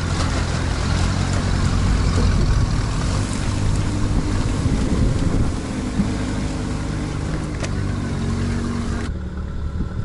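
An all-terrain vehicle's engine working hard as the vehicle is brought up out of a deep creek, under a loud rushing noise. The rushing cuts off about nine seconds in while the engine keeps running.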